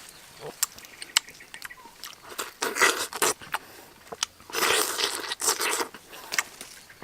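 A person biting into and chewing sapodilla fruit: irregular wet mouth sounds and small clicks, coming in two denser bouts.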